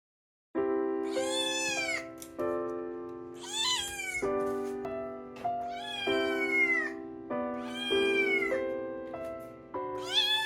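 Background music with held chords, and a cat meowing five times over it, about every two seconds, each meow rising and then falling in pitch.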